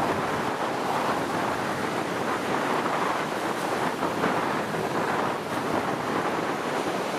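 Ocean surf breaking and washing on the shore, mixed with wind blowing across the microphone: a steady, fairly loud rushing noise.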